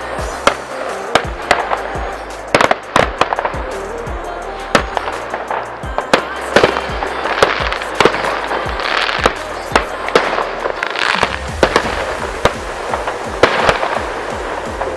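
Fireworks going off in many sharp, irregular bangs with bursts of crackle, over background electronic music with a steady bass line.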